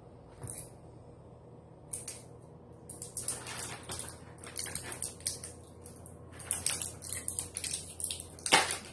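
Metal screw cap on a small brown glass bottle being twisted and worked by hand: a run of irregular clicks and crackles, starting about two seconds in.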